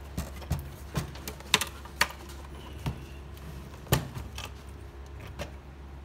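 Irregular clicks and knocks of circuit boards and a sheet-metal chassis being handled as a plug-in F-ROM card board is pulled from its slot in a FANUC 0i-C CNC control unit. The loudest knocks come about a second and a half in and again near four seconds.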